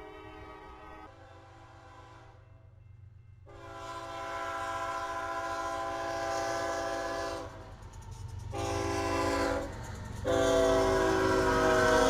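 Locomotive air horn sounding a series of blasts: two faint ones at the start, a long one of about four seconds, a short one, and another long one starting near the end. The blasts get louder toward the end, over a low engine rumble.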